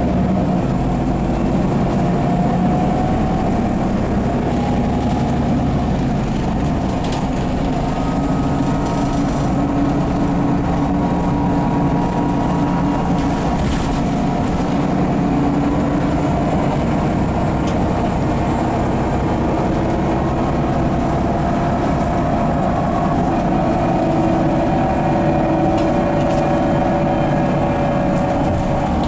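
Solaris Urbino 12 city bus under way, heard from inside the passenger cabin: its DAF PR183S3 diesel engine and Voith D854.5 automatic gearbox give a steady drone with whining tones that drift slowly up and down with speed, and a few light rattles.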